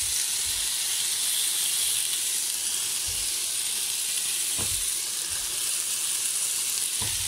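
Chicken breast pieces sizzling on the hot plate of an open electric contact grill, a steady hiss.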